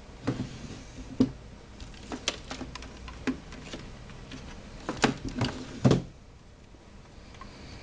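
Plastic clicks and knocks from a small battery-powered LED camping light being turned over and picked at by hand. They come scattered for about six seconds, the loudest just before they stop.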